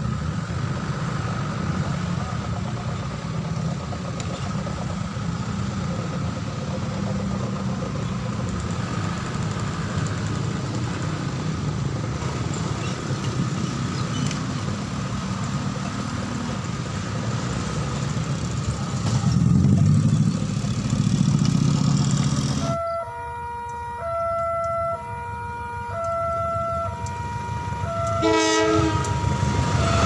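Road traffic crossing the level crossing: motorcycle, car and bus engines rumbling steadily, rising as a heavy vehicle passes. Then a horn sounds a run of steady notes that change pitch about once a second and slide down near the end. Train running noise builds just after.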